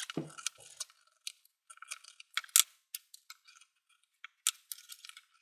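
Round knife skiving the end of a leather strap on a hard work table: a run of short, sharp scraping cuts and clicks at irregular intervals, the loudest about two and a half seconds in.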